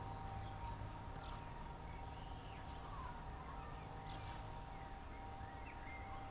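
Faint swishes of a hand scythe cutting grass, a few strokes about a second and a half apart, with small bird chirps over a steady low hum.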